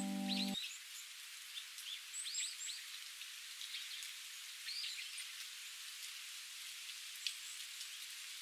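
Small birds chirping and twittering over a steady high hiss of outdoor ambience. The closing chord of the classical piano music cuts off about half a second in, and a single sharp click comes near the end.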